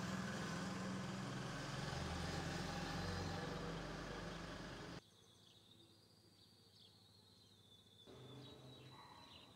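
Outdoor ambience with a motor vehicle's engine running steadily, cut off abruptly about halfway through. Much quieter outdoor ambience follows, with faint high bird chirping.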